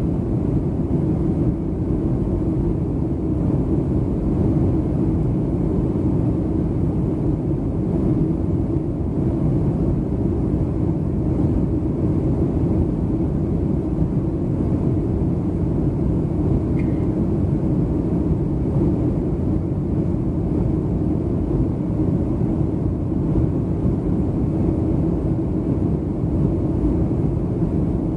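Boeing 757-200 passenger cabin noise: a steady, even rumble of engines and airflow that does not change.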